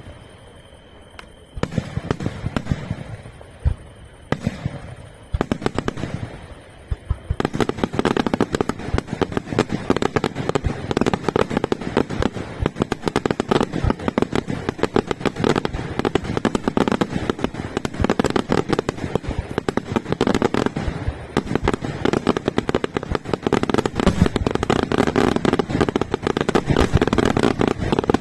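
Aerial fireworks going off: separate bangs in small clusters at first, then from about seven seconds in a dense, rapid barrage of overlapping reports and crackles that keeps building to the end.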